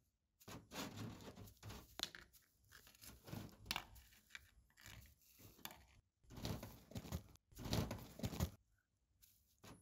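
Rustling and tearing of coarse sacking, in irregular bursts with short gaps, loudest from about six to eight and a half seconds in.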